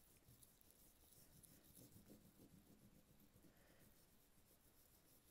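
Faint scratching of a twistable crayon rubbed across paper laid over a mesh bag, making a texture rubbing.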